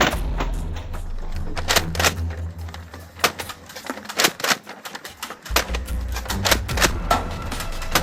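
Foam-dart blasters being fired and cocked: a run of irregular sharp plastic clacks.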